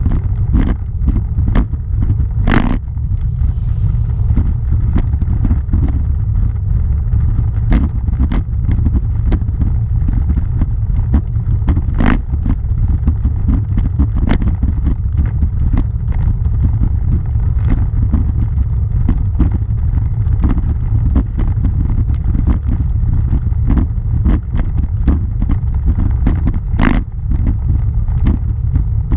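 Steady heavy rumble of a bike riding over a cobblestone road, with frequent irregular sharp clatters as the wheels and camera mount jolt on the cobbles. A few jolts, about three seconds in, around twelve seconds and near the end, are louder than the rest.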